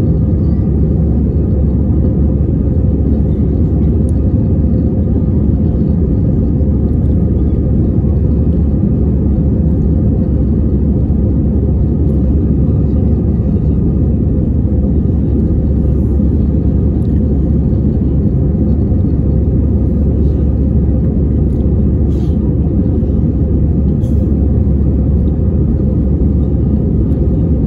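Steady drone of jet engines and rushing air inside the cabin of an easyJet Airbus A320-family airliner, heard from a window seat over the wing as it climbs. A deep, even rumble, with no change in pitch or level.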